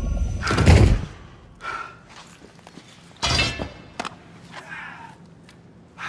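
Fight sound effects: a heavy thud with a deep low end in the first second, then a second sharp hit about two and a half seconds later, with a few short breaths and a click between them.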